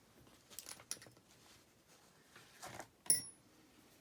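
Small screwdriver clicking and scraping against tight little screws on the back of a lock cylinder, with one sharp metallic clink about three seconds in that rings briefly.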